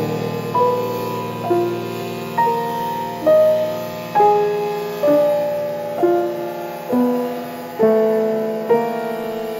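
Slow, gentle piano background music, with a single melody note struck about once a second and left to fade over held lower notes.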